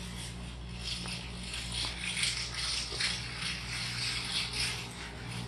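Steady low machine hum under a faint hiss, with a few faint clicks.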